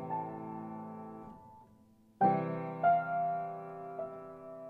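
Background piano music: slow chords that ring and fade, with a new chord struck about two seconds in and single notes following.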